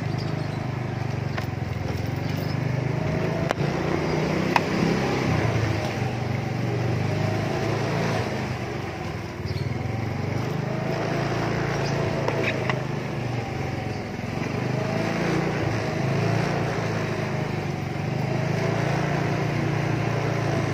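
A small engine running steadily at low speed, with inline skate wheels rolling over rough asphalt and a few sharp clicks.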